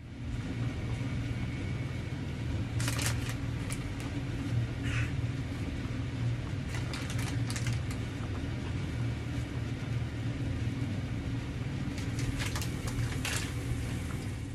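Plastic packaging crinkling and rustling in several short bursts as powder is shaken out into a bag-lined bowl, over a steady low hum.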